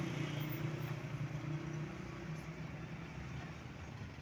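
A motor vehicle's engine running at low speed, a steady low hum that slowly fades.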